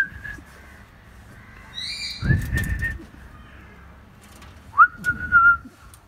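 Hill myna whistling in short clear notes. The first, about two seconds in, rises and comes with a muffled low rumble. Near the end there is a sharper upswept whistle, held for under a second.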